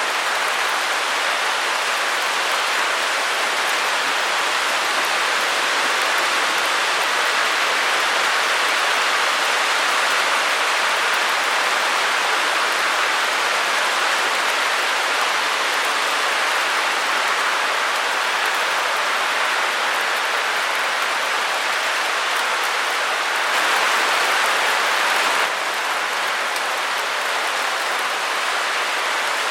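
Steady, even hiss of a white-noise track, with a slight rise in level for about two seconds near the end.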